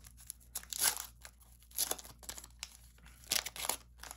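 Crinkling and tearing of a trading-card pack wrapper as it is opened, in three or four short bursts with pauses between.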